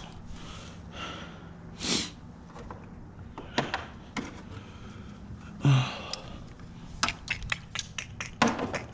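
Hands and tools working loose hose clamps and fittings in a car's engine bay: a run of sharp clicks and light knocks that grows busier from about halfway, with several loud breaths between.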